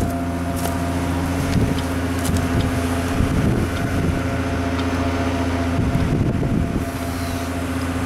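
An engine on a tree crew's bucket truck and wood chipper rig running at a steady speed, with gusty wind buffeting the microphone.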